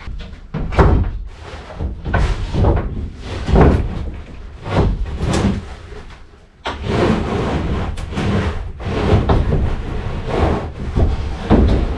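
Repeated knocks and thuds of a sheet of wooden siding being handled and shifted into place on a door frame. About halfway through, a continuous rough noise sets in, with more knocks through it.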